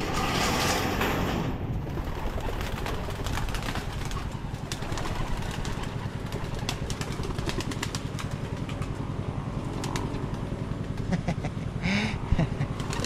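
Pigeons flying into a wire-mesh loft: a burst of wing flapping in the first second or so, then scattered sharp clicks of wings and feet on perches and mesh, over a steady low drone.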